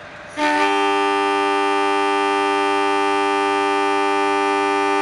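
Diesel locomotive's air horn sounding one long, steady blast of several tones at once, starting about half a second in.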